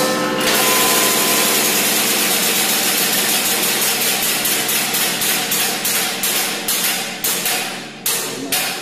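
The Great Clock of Westminster's striking mechanism running: a rapid mechanical clatter of gearing and ratchet over a steady low hum. The clicks grow sparser near the end as it winds down.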